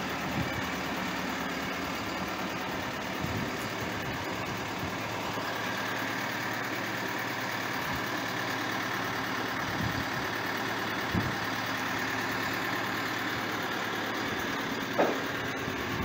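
Engine of boatyard lifting machinery running steadily at idle. A steady high whine joins it about six seconds in, and there are two short knocks in the second half.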